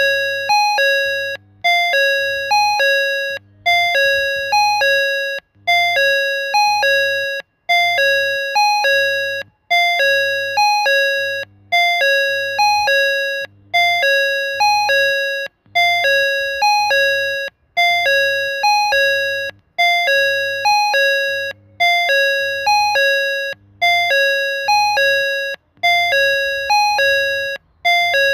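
Station platform train-approach indicator sounding its electronic chime, a pattern of a few pure tones that resembles a JR West door chime. It repeats about every two seconds without a break, warning that a train is approaching.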